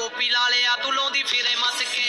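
A Punjabi pop song playing, a singer's voice over the backing track.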